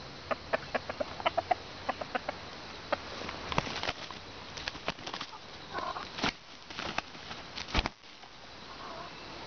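Red junglefowl rooster making a run of short, sharp clucks, then several louder flurries of wing-flapping and scuffling in dry grass in the second half.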